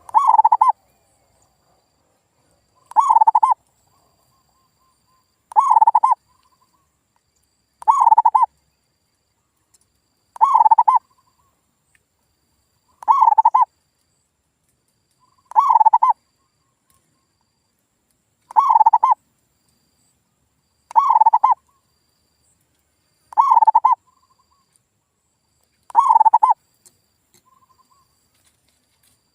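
Male zebra dove (perkutut) cooing: eleven short, rolling coo phrases, evenly spaced about every two and a half seconds. This is a lure recording, played to make wild or silent perkutut answer and start singing.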